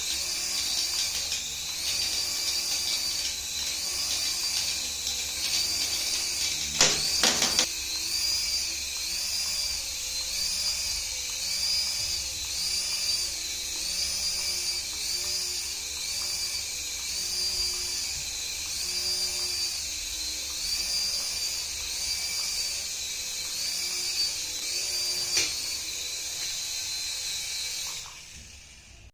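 High whine of a remote-control toy's small electric motor running steadily, its pitch swelling and dipping about once a second. There is a brief clatter of clicks about a quarter of the way in, and the whine fades away at the very end.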